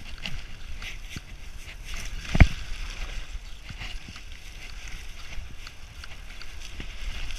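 Mountain bike rattling and clattering down rough, grassy ground, with many small knocks throughout and one heavy thump about two and a half seconds in, as the bike hits a bump.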